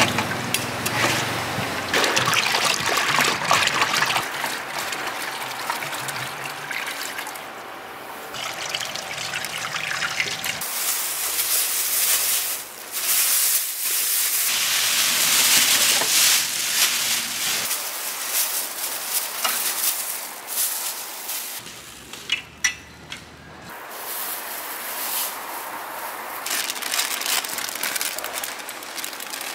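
Water running and splashing into a large stainless steel pan, a steady hissing flow that changes level abruptly several times.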